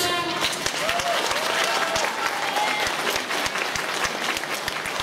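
Audience applauding: many hands clapping in a dense, steady stream right after a song stops.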